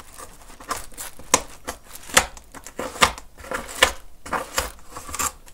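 A sharp hand tool pressing and scraping into paper-covered foam, giving a sharp click about once a second with light scratching in between.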